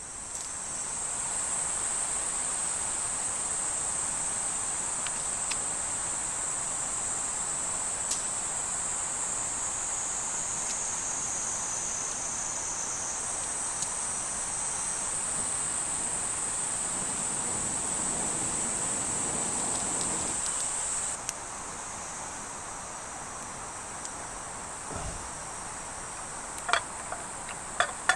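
A steady, high-pitched chorus of crickets shrilling without a break; it drops in level about 21 seconds in. A few light clicks near the end.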